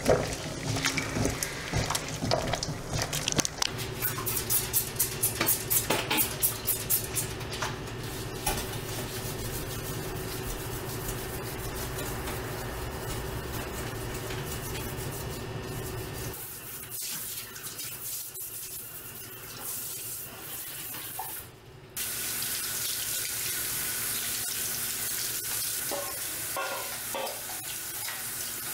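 Water boiling hard in a stainless stockpot, the kitchen scissors and metal strainers in it rattling against the pot, then boiling on more steadily. After a quieter stretch of scrubbing at the sink, a kitchen faucet starts about two-thirds of the way in and runs steadily, the stream splashing over a metal strainer held under it.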